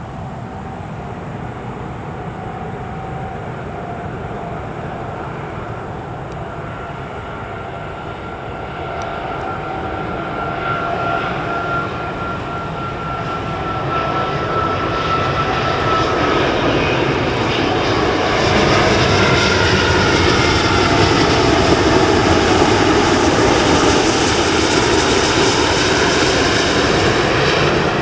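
Singapore Airlines Airbus A380-841's four Rolls-Royce Trent 900 jet engines passing the runway. The roar grows steadily louder and peaks about three quarters of the way through, while thin whining engine tones slide down in pitch as the aircraft goes by.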